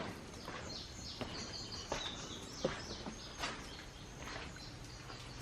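Small birds chirping in woodland over a quiet outdoor background, the chirps clustered in the first couple of seconds, with a few soft knocks scattered through.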